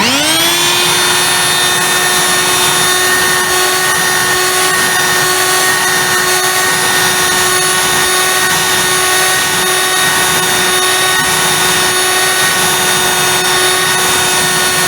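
Dirt Devil corded, bagged handheld vacuum cleaner switched on, its motor spinning up in the first half second, then running at a steady whine.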